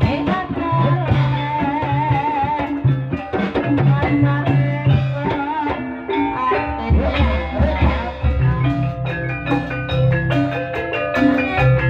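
Live Javanese gamelan music for an ebeg dance: struck metallophone keys playing stepped melodies over drum strokes, with a long wavering melodic line early on. A deep low part joins about seven seconds in.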